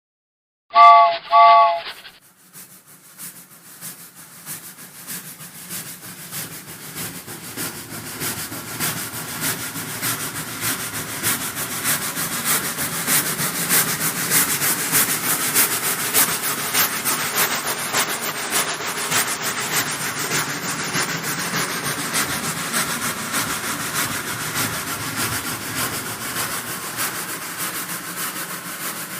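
Steam locomotive whistle gives two short blasts of a chord of several tones, then the locomotive's rapid chuffing and rail clatter rise in level over about ten seconds and carry on steadily as the train runs past.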